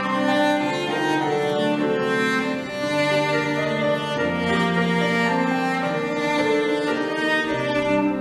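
Cello and violin playing a slow melody in long held notes.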